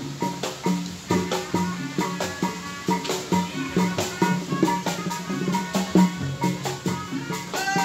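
Sundanese sisingaan procession music: fast, busy drumming and percussion with a sustained melody line above it.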